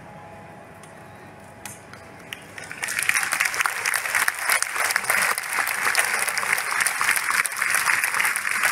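Audience applauding: a few scattered claps, then full, steady applause from about three seconds in.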